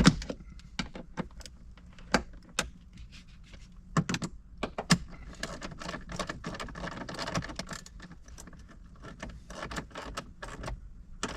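Irregular clicks, taps and rattles of small parts and a hand tool being handled, with sharper knocks about two, four and five seconds in, as the interior grab handle is being refitted.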